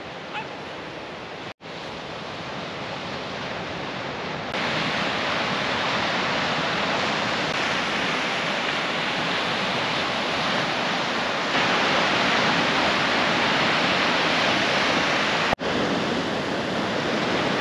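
Ocean surf breaking and washing on a sandy beach, a steady hiss of waves that steps up in level a few times and cuts out for an instant twice.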